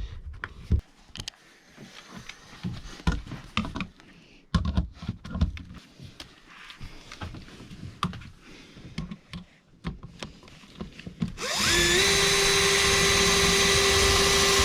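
Scattered knocks and clicks of handling, then about eleven seconds in an electric drill spins up and runs loudly at a steady pitch for about three seconds.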